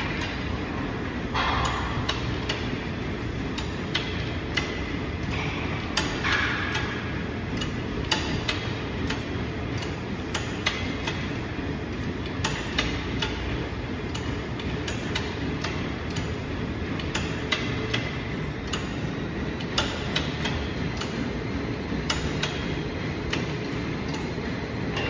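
Light clicks and knocks about once a second from a selectorized leg curl machine as it is worked through repetitions, over a steady low rumble of gym ambience.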